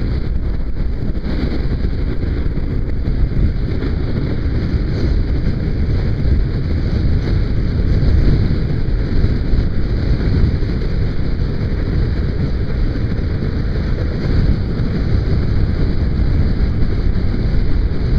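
Wind rushing steadily over the microphone of a Kawasaki KLR motorcycle riding at road speed, with the bike's engine running underneath.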